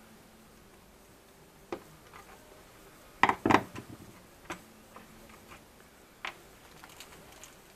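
Scattered small clicks and knocks from handling a plastic climate control unit and a screwdriver on a wooden workbench, as the unit's casing is opened. A louder clatter of several knocks comes about three seconds in, with single clicks before and after.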